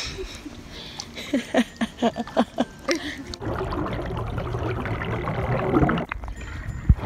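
Swimming-pool water heard through a camera held underwater: short bubbling gurgles, then a steady rush of bubbles that stops abruptly about six seconds in.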